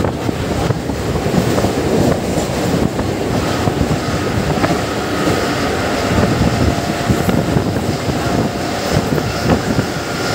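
Passenger train running at speed, heard from on board: a steady rumble of wheels on rails mixed with wind, with a few faint clicks from the track.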